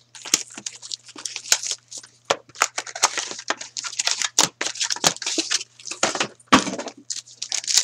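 Upper Deck SPx hockey card packaging being torn open and handled: a dense, irregular run of crinkling, crackling and snapping from the wrapper and the cardboard box.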